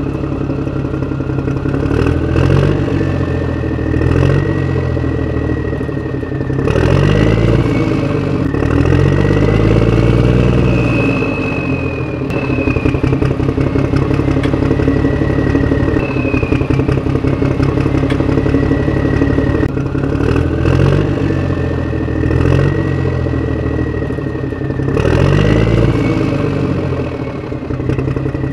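Small DC motors of a homemade toy tractor and its spinning saw-blade cutter running, with a high whine that wavers up and down in pitch over a low hum and a rattle.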